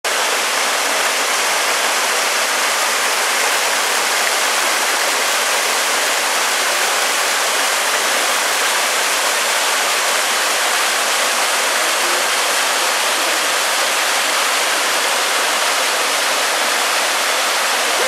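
Small waterfalls cascading into a rocky river pool: a steady, loud hiss of rushing water with little low rumble.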